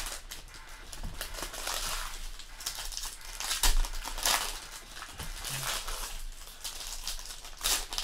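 Foil trading-card pack wrappers being torn open and crumpled by hand, crinkling in irregular bursts, loudest about halfway through.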